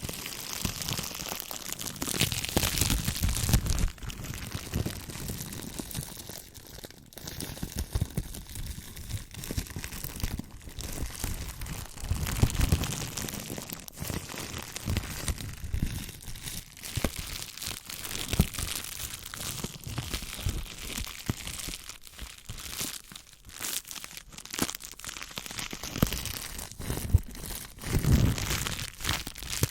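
Bubble wrap crinkling and crackling as it is squeezed and rubbed close to the microphone, mixed with soft low rubbing of a fluffy microphone windscreen cover.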